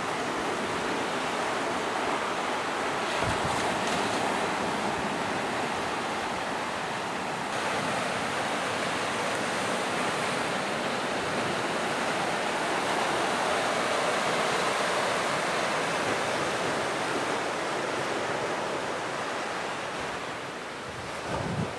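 Heavy hurricane surf crashing and washing up the beach in a steady roar of breaking waves. Wind buffets the microphone in a couple of low thumps.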